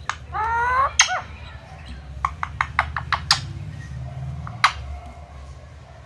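Indian ringneck parakeet giving one short rising call, followed by a quick run of sharp beak clicks and taps, about eight in two and a half seconds, with one more click a little later.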